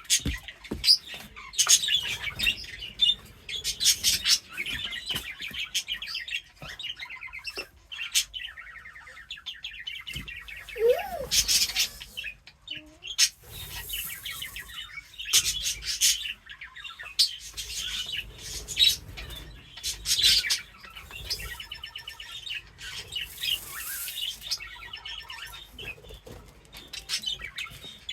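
Caged birds chirping continuously, with wing flutters and many short rustling, rattling bursts throughout.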